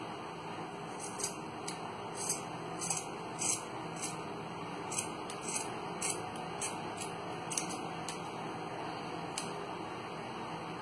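Scissors snipping through a fabric sock: about a dozen short snips at an uneven pace, thinning out after about eight seconds, over a steady background hiss.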